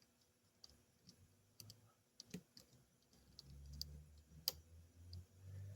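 Faint, scattered small clicks of a pick working the pins of a Yale Superior dimple lock under tension, with one sharper click about four and a half seconds in. A faint low hum runs under the second half.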